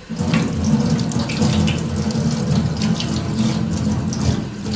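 Tap water starting suddenly and running in a steady rush onto a copper plate held by hand, splashing into a stainless steel sink. The plate is being rinsed clean of the whiting paste used to degrease it.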